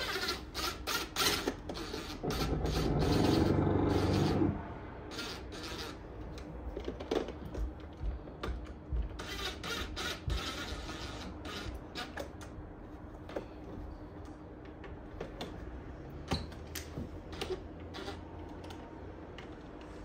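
Fabric rubbing against the microphone, with scattered clicks and crackles of handling noise. A louder steady rush runs from about two to four and a half seconds in.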